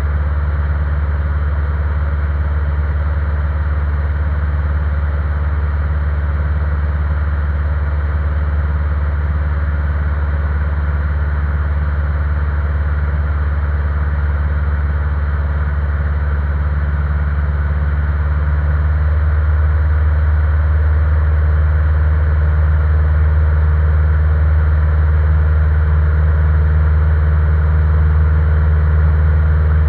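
Engine and propeller of a single-engine light airplane running steadily, heard inside the cockpit, growing a little louder about two-thirds of the way through.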